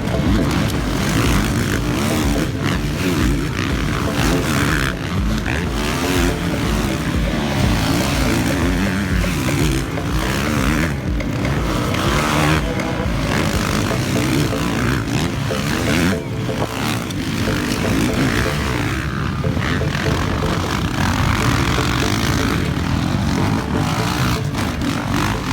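Motocross dirt bike engines racing, revving up and down continuously.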